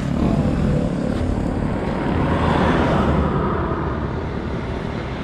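Road traffic: a vehicle going past, its noise swelling around the middle and then easing off over a steady low engine hum.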